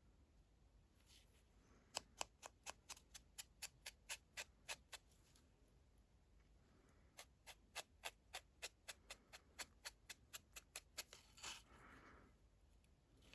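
Quick light tapping: a sponge dabbing gilding paste onto the edge of a craft ornament, in two runs of about four taps a second.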